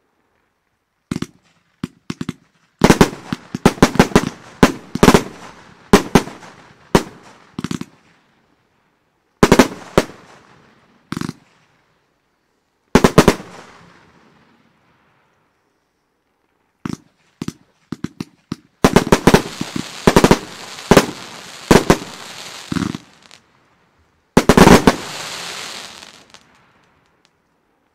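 Consumer fireworks battery (El Gato Fiesta Grande) firing: groups of sharp bangs in quick succession, separated by pauses of one to three seconds. The last two volleys are trailed by a fading hiss of crackle.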